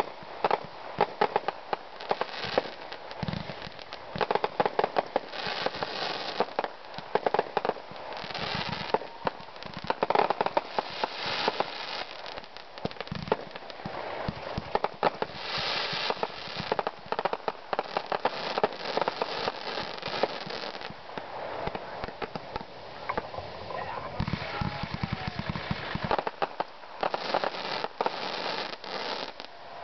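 Fireworks going off in a continuous run: repeated bangs with dense crackling from crackling-star bursts.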